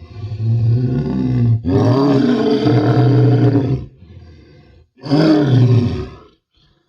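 Crocodile roaring: a series of deep, pitched roars with short breaks, the second about two seconds long, then a faint one and another loud one near the end.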